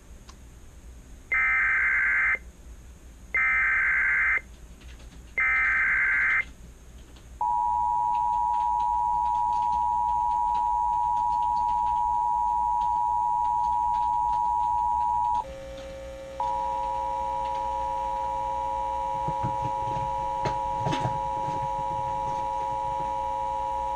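Emergency Alert System signalling: three short screeching SAME header data bursts, about two seconds apart, followed by the steady two-tone EAS attention signal. The attention tone breaks off for about a second and resumes at a lower level, with a hum under it.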